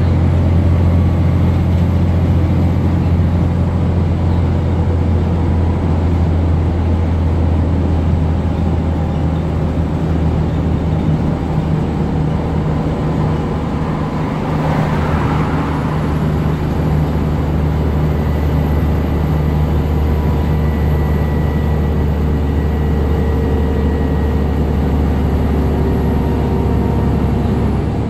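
Cabin sound of a 2007 New Flyer D60LFR articulated diesel bus under way: its Cummins ISM inline-six engine runs with a steady low drone under road and body noise. There is a brief rushing swell about halfway through and a thin high whine in the background.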